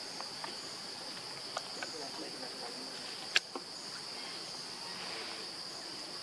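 Steady high-pitched drone of insects, with a few light clicks and one sharp, loud click about three and a half seconds in.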